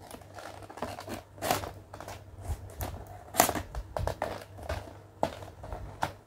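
Scissors snipping through a plastic toy-packaging bag while the stiff bag crinkles as it is handled, in irregular crackles and snips; the loudest crinkles come about one and a half and three and a half seconds in.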